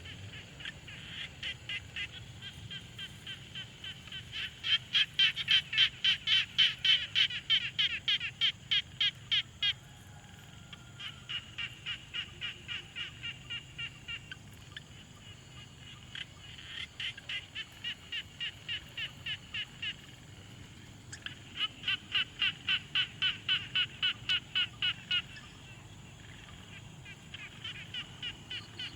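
Frogs calling at a pond in several bouts a few seconds long. Each call is a train of rapid, evenly spaced pulses, about three a second, and the loudest bout comes in the first third.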